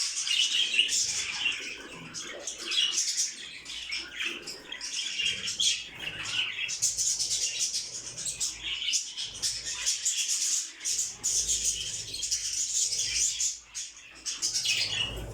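Many small caged birds chirping and twittering together in a dense, continuous high chatter.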